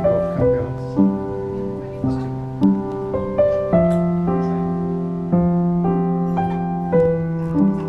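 Slow piano music: single melody notes struck about once a second over held low notes.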